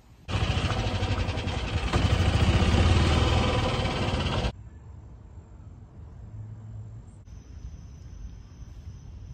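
Golf cart driving, its motor running steadily for about four seconds, then cutting off suddenly. After that comes faint ambience with a thin, steady high buzz of insects.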